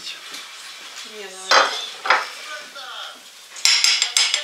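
Cutlery clinking and scraping against plates. There are two sharp clinks about a second and a half and two seconds in, and a bright ringing scrape near the end.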